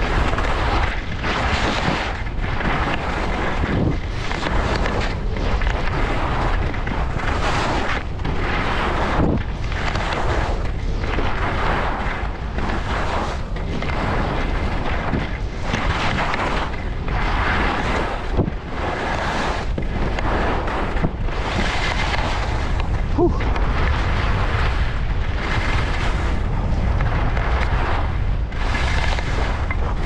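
Skis hissing and scraping over snow in turns that surge about once a second, over a steady low rumble of wind buffeting the GoPro's microphone while skiing downhill.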